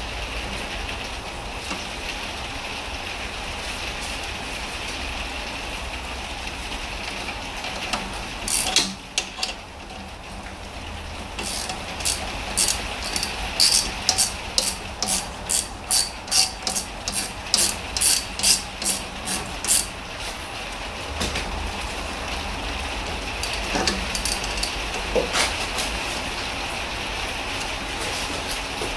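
Ratchet wrench clicking in a regular run of about two to three strokes a second as the bottom brake caliper bolt is tightened, over a steady hiss.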